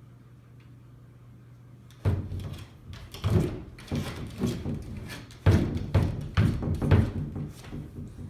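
Wooden glass-paned sliding doors thumping and rattling in their frame as a corgi shoves at them from the other side. The knocks start suddenly about two seconds in and come irregularly, roughly two a second.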